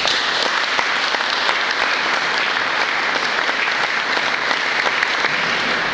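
Audience applauding, many hands clapping at once, tailing off at the end.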